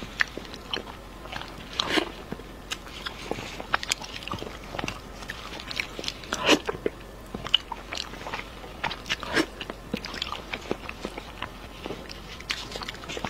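Close-miked eating: a person biting, tearing and chewing sauce-glazed chicken wings, with many irregular sharp wet mouth clicks and smacks.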